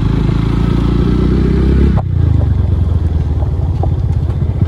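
Motorcycle engine running while riding, with fast even firing pulses; the engine sound drops sharply about two seconds in, as if the throttle is closed, and carries on lower.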